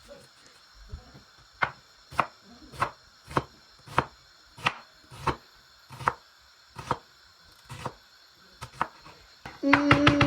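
Kitchen knife chopping onions on a cutting board in slow, even strokes, about one and a half a second. Near the end comes a quick flurry of chops with a brief steady tone over it.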